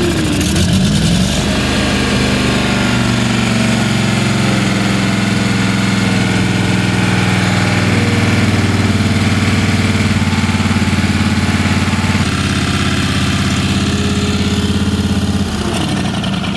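Briggs & Stratton 18 hp Vanguard V-twin engine running on full choke just after a start, rising in speed over the first second or so and then running steadily. It is switched off near the end.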